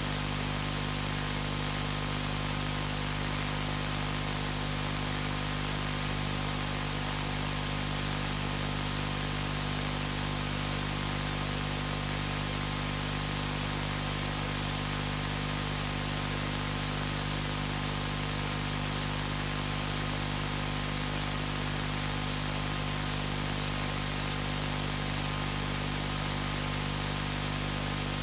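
Steady, unchanging hiss with a low electrical hum underneath: background noise from the recording setup or the room's machinery, with no distinct events.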